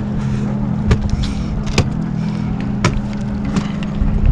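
Boat motor running with a steady low hum, and a few sharp clicks and knocks about once a second while a hooked fish is netted beside the hull.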